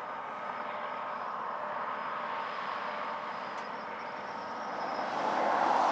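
Distant freight train hauled by GE AC4400CW diesel-electric locomotives, heard as a steady faint drone with a few faint steady tones as it rounds a curve. Near the end a broad rush of noise swells up.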